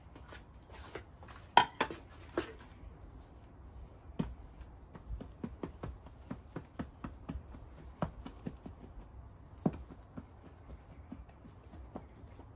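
Irregular light taps and knocks as a cloth bag of talc is patted over a 3D-printed plastic pattern in a steel moulding flask, dusting it as a mould release. A cluster of sharper clicks comes about two seconds in.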